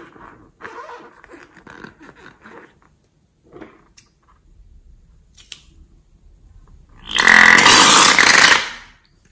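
Latex balloon handled and squeezed in the fingers, its rubber rubbing and creaking softly. Near the end, for about a second and a half, air and white liquid spurt loudly out of the balloon's neck with a rapid fluttering rattle.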